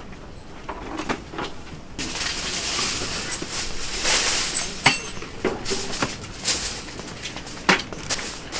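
Sheet of aluminium foil crinkling and rustling as it is spread and pressed down over a metal grill box. The rustling starts suddenly about two seconds in and is loudest near the middle, then gives way to scattered sharp crackles.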